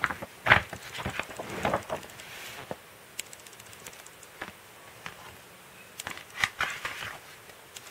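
Glossy magazine pages being turned and handled: a run of short paper rustles and crinkles, thickest in the first two seconds and again about six seconds in.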